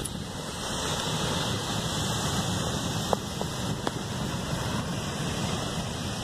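Steady wash of surf breaking on a beach, with wind buffeting the microphone.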